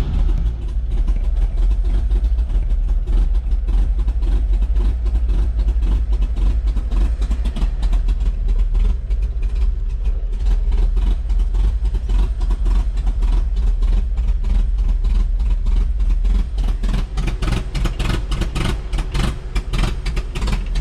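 A long-stored 1954 Chevrolet 3100's 235 straight-six being cranked over on the starter for a long stretch, the choke pulled, turning over steadily without catching. Sharper, uneven pops grow denser in the last few seconds as it tries to fire.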